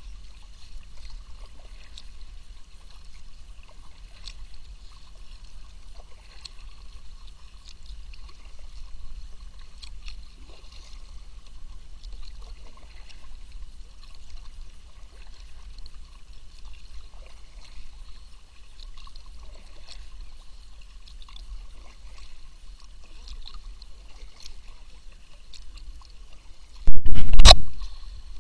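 Kayak paddling on a calm lake: quiet trickles and drips of water from the paddle blades over a steady low rumble. A sudden loud thump close to the kayak near the end.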